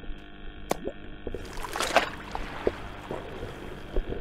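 Aquarium water splashing and plopping, with scattered clicks and a steady hum underneath; the splashing swells about one and a half seconds in.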